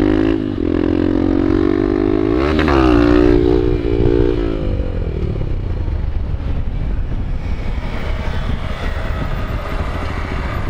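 Honda Bros 150 single-cylinder four-stroke engine under throttle, its revs climbing sharply about two and a half seconds in as the bike is lifted into a wheelie, holding high for a couple of seconds. After about five seconds the engine note sinks under steady wind and road noise.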